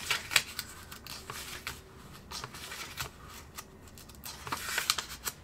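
Paper sketchbook pages being turned by hand: a string of quick paper flicks and rustles, with a longer rustle near the end.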